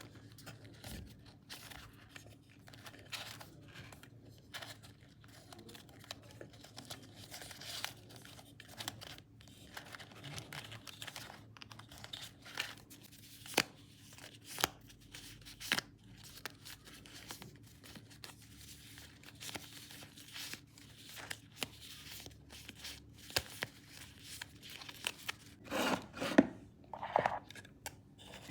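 Paper handled close to the microphone: irregular short rustles and tearing strokes, with a few sharp clicks and a louder crinkling burst near the end.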